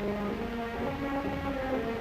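Background orchestral music with held, slowly changing notes, over the hiss and rumble of an old film soundtrack.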